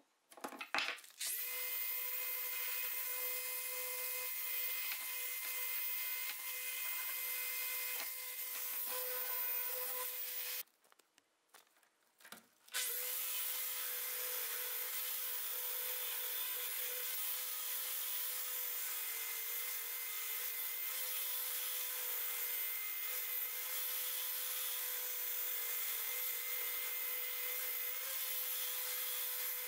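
Orbital sander running with a steady whine and hiss, sanding rust off the steel head of a hewing axe. It starts about a second in, stops for about two seconds with a few clicks a third of the way through, then runs steadily again.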